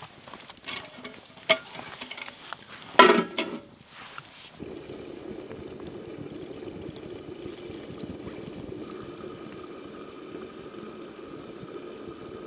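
Water boiling in a steel mess tin of rice over a campfire: a steady bubbling that starts about four and a half seconds in. Before it, sharp crackles and one loud clatter about three seconds in.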